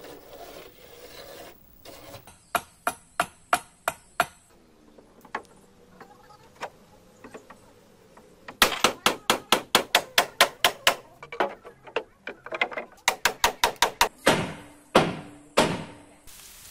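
Hammer blows on wood as frames are fastened into a wooden boat hull: a few separate strikes, then long fast runs of about four to five blows a second, with a few heavier blows near the end.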